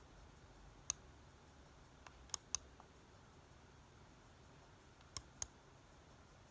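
Computer mouse clicking against near-silent room tone: a single click about a second in, a faint click then a quick pair around two and a half seconds, and another quick pair about five seconds in.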